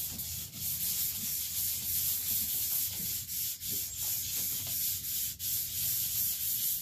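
Cords pulled back and forth around the journals of an Isuzu E120 diesel crankshaft, several at once, giving a continuous rubbing that wavers with the strokes as the journals are polished.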